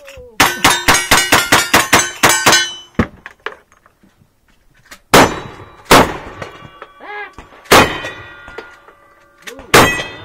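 Cowboy action shooting gunfire on steel targets. A fast string of about a dozen shots comes in under three seconds, each hit ringing on steel. Four more shots follow, spaced a second or two apart, with the struck steel plates ringing between them.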